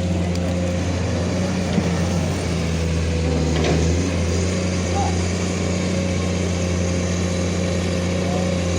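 Excavator's diesel engine running at a steady speed with an even low hum.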